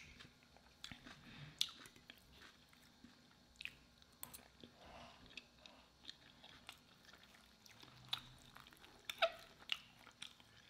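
Faint close-up chewing of a mouthful of soft, cheesy chicken pot pie lasagna, with scattered small mouth clicks. A few sharper clicks near the end as a fork digs into the glass baking dish.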